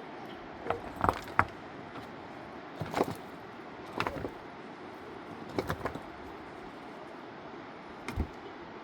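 A series of irregular sharp knocks and clatters, in small clusters spaced a second or more apart, over a steady background hiss.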